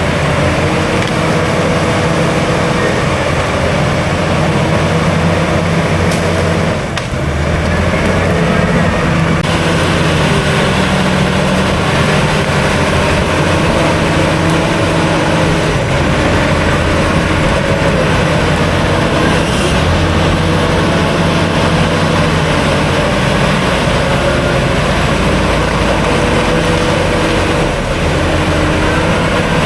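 Heavy diesel engine of earthmoving machinery running continuously, its pitch shifting a little, with a brief dip about seven seconds in.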